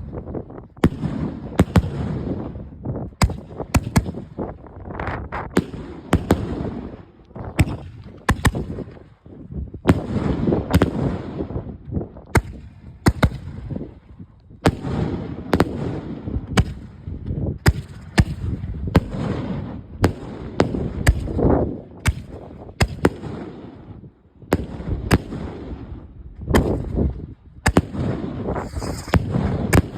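2-inch Roman candle fireworks firing in volleys: sharp pops and bangs come irregularly, often several a second, over a continuous rushing noise that breaks off briefly a few times.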